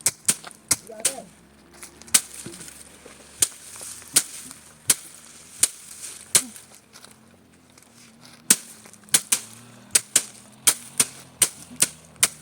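Dry soybean plants being cut and broken by hand at harvest, giving sharp, irregular snaps and cracks, about one or two a second.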